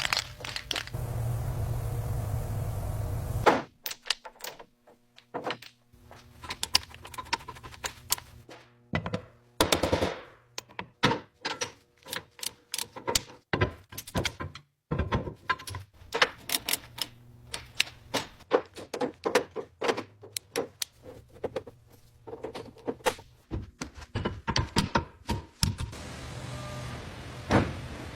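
A steady noise for the first few seconds, then a long run of irregular sharp clicks and knocks, like hand tools working on metal.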